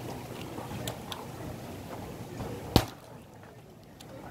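Split firewood being handled: a few light wooden clicks, then one sharp knock of wood striking wood near the end.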